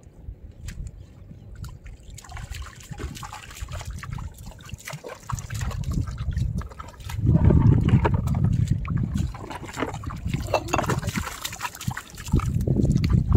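Shallow seawater splashing and trickling around wading feet and a net bag, with many scattered small clicks. A low rumble swells louder about seven seconds in.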